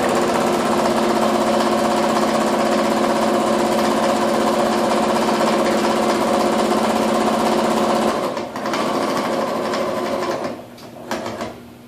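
Electric sewing machine running steadily as it top-stitches a fabric strip onto a terry hand towel. It pauses briefly about eight seconds in, runs again, and stops about ten and a half seconds in, followed by a few light clicks.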